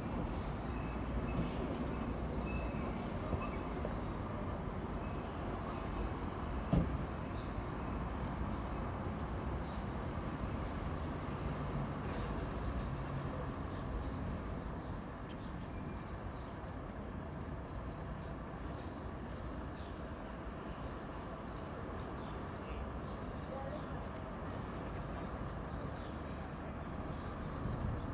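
Steady outdoor traffic noise, with a single knock about seven seconds in and faint short high ticks scattered throughout.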